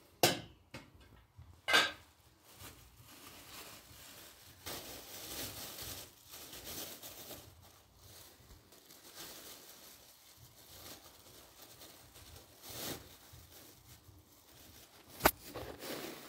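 A plastic bag rustling and crinkling as it is handled, with a few sharp knocks: two in the first couple of seconds and one near the end.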